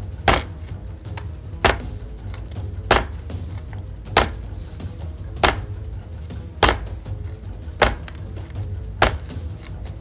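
Cheap folding knife's tip stabbed again and again into a wooden cutting board: a sharp knock about every one and a quarter seconds, eight in all, testing the tip strength.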